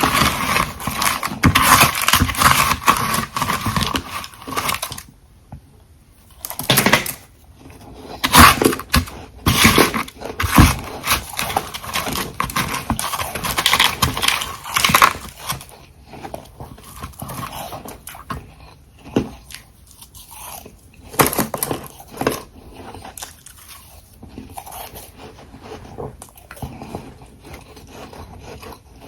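Close-up crunching of hard frozen ice: a person biting into and chewing refrozen frost and crushed ice chunks. There is dense crackling at first, then single loud crunches, another thick run of crunching about halfway, and quieter, sparser chewing in the second half.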